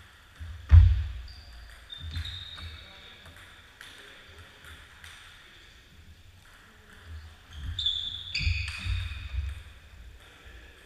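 Table tennis rally: the celluloid ball clicking off the paddles and table, sport shoes squeaking on the wooden gym floor, and heavy footfalls, with a loud stamp about a second in and another burst of squeaks and thuds near the end.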